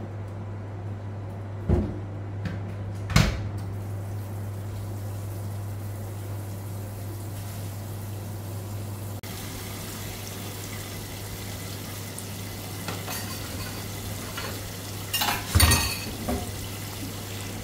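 A metal cooking pot knocks twice as it is handled, then from about halfway a kitchen tap runs into a stainless steel pot of boiled pomelo pith sitting in a steel sink, rinsing it. Metal clanks in the sink near the end are the loudest sounds, over a steady low hum.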